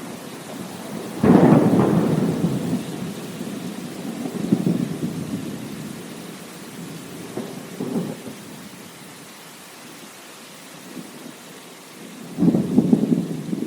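Thunderstorm: steady rain with rolling thunder. A loud, sudden thunderclap comes about a second in, with smaller rumbles in the middle and another loud clap near the end.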